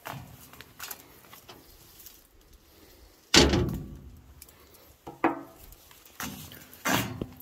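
Metal bangs and knocks on the rusted steel body of an old excavator as it is handled and climbed on. There are a few light knocks at first, a loud bang about three and a half seconds in, and three more knocks after five seconds.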